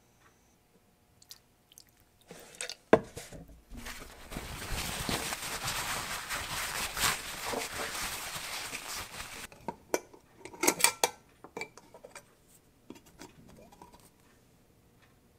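A sharp knock, then a cloth rag rubbing briskly for about five seconds as it wipes the work down. A quick cluster of sharp clicks follows, with a few fainter ones as the lid is worked off a can of Plasti Dip.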